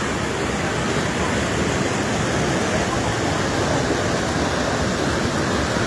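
Muddy floodwater rushing past in a fast torrent, a steady loud rush of water.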